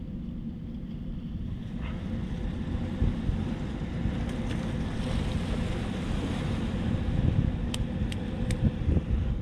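Wind buffeting the microphone over the wash of sea waves, swelling in the middle, with three short sharp clicks near the end.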